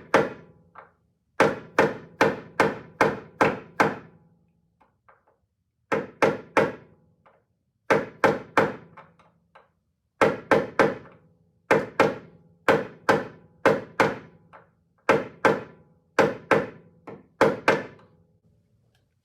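Hammer blows driving a hinge pin into a Porsche 914 door hinge: sharp, briefly ringing strikes in runs of two to six, about three a second, with short pauses between the runs.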